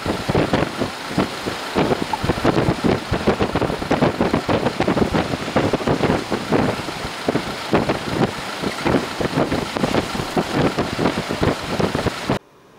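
Storm-force wind buffeting the microphone in rapid, irregular gusts, loud and rumbling. It cuts off abruptly just before the end.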